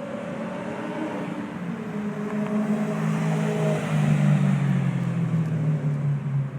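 BMW E9X M3 V8 running through a performance exhaust, its note falling steadily in pitch throughout and growing louder in the second half.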